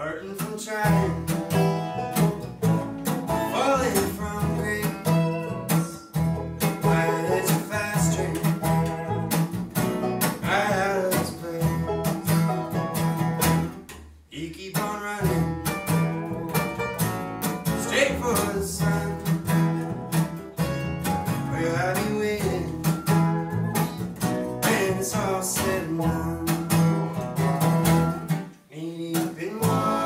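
Acoustic bluegrass band playing live: banjo, acoustic guitar, upright bass and a dobro (resonator guitar) picking a fast tune, with a few sliding notes.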